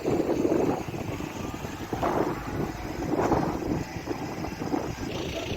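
Rumble of vehicle engines with wind noise on the microphone.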